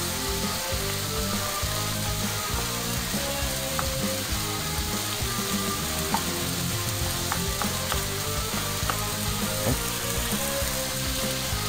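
Diced bacon and onion sizzling in a frying pan while a wooden spatula stirs them, scraping the pan with a few light taps. The onion is just starting to soften.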